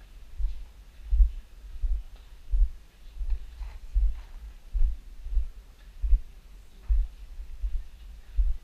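Footsteps of the person carrying the GoPro, heard as low thuds jarring the camera at an even walking pace, about three every two seconds.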